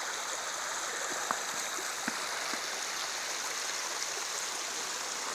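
Small runoff creek trickling over stones: a steady, even rushing hiss, with a couple of faint ticks.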